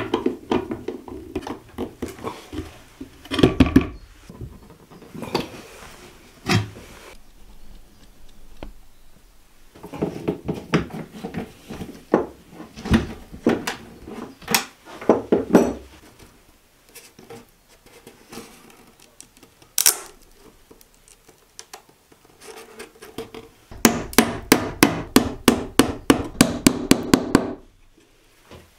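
Screws being driven by hand with a screwdriver through metal shelf brackets and a cabinet hinge into OSB and wood: three bursts of quick, even clicking turns, with a few single knocks between them.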